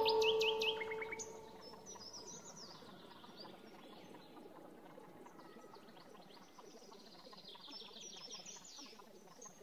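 Birdsong: runs of quick, high, rising chirps over a faint, steady outdoor background. A held musical tone fades out in the first second or so.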